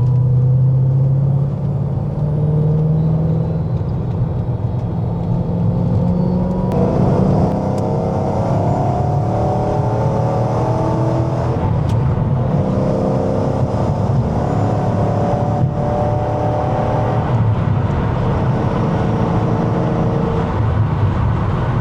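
2012 Shelby GT500 Supersnake's supercharged V8 pulling under load. Its pitch rises in several stretches and drops back between them as it shifts gears.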